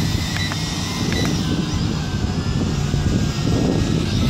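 Gusting wind buffeting the microphone, with the thin steady whine of the Tarantula X6 hexacopter's motors and propellers flying overhead above it.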